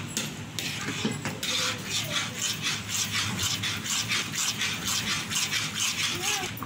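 Steel spatula scraping and stirring thick wheat halwa around a pan in quick, even strokes, several a second. The halwa is thickening and is kept moving so it does not stick to the bottom.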